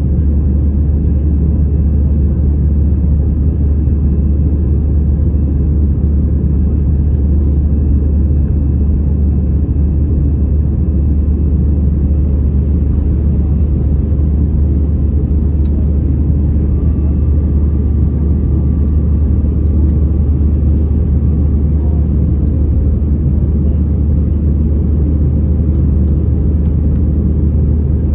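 Cabin noise inside an Airbus A319 climbing after take-off: a loud, steady low rumble of its two CFM56 turbofan engines and the airflow over the fuselage, with faint steady whining tones above it.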